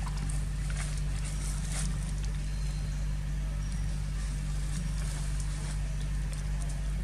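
A steady low hum made of several fixed low tones, with faint short rustles and clicks over it.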